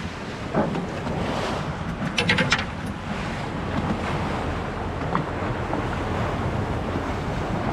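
Wind buffeting the microphone over the sound of the sea around a boat, a steady rough rumble. A quick rattle of sharp clicks about two seconds in.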